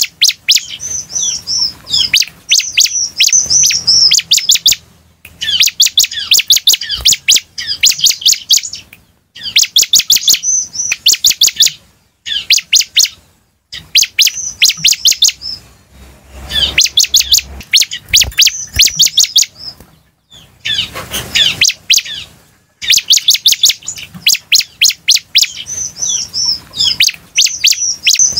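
Bar-winged prinia (ciblek) singing: loud bouts of a few seconds each, made of rapid sharp chips run together with high warbled notes, broken by short pauses.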